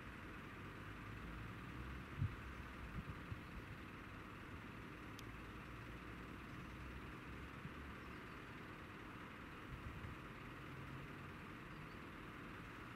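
Steady, quiet, distant vehicle noise: a low rumble under an even hiss, with a few brief low thumps about two to three seconds in.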